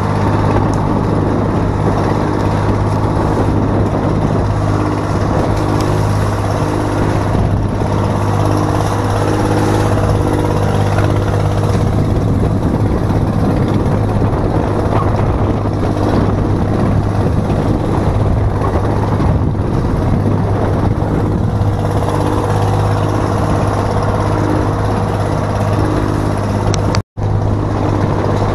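Outrigger fishing boat's engine running steadily at cruising speed, a constant low hum, with water rushing and spraying along the hull. The sound drops out for an instant near the end.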